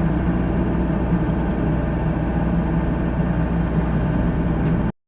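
Mini excavator's diesel engine running steadily with a low hum. The sound cuts off abruptly near the end.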